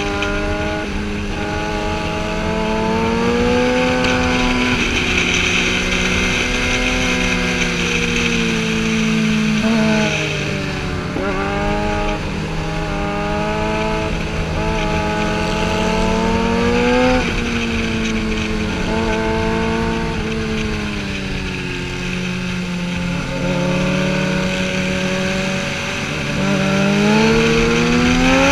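Sportbike engine at speed, its pitch rising and falling as the rider works the throttle and gears through the curves. There are sharp changes around ten to twelve seconds in and again a little after halfway, and a steep climb near the end. A steady rush of wind runs underneath.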